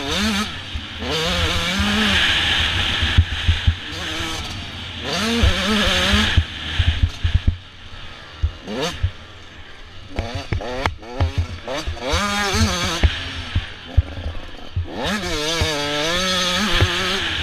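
Motocross dirt bike engine revving up and easing off again and again as it is ridden around the track, the pitch climbing in several long rises. Short knocks from the bumps and a rushing noise of wind on the microphone run under it.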